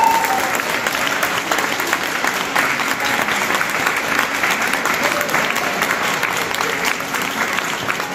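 Audience applauding, a dense steady patter of many hands clapping that eases off slightly toward the end.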